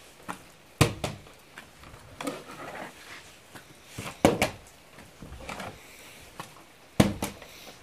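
Plastic water bottle tossed in a bottle flip and landing hard on a board floor, three times: about a second in, past the middle, and near the end. Each landing is a sharp thunk followed by a quick knock or two as the bottle bounces and topples instead of landing upright.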